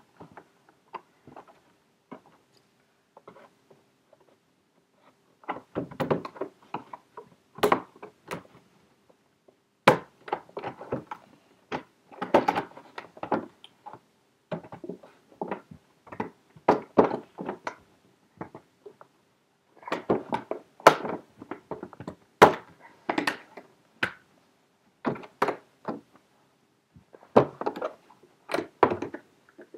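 Packaging being handled and worked open by hand: irregular knocks, taps and crinkling in clusters, over a faint steady hum.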